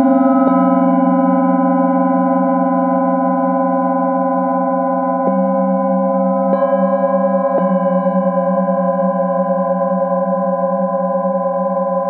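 Set of metal singing bowls struck one at a time with a padded mallet, about four strikes, each adding a fresh ringing tone over the long, overlapping hum of the bowls already sounding.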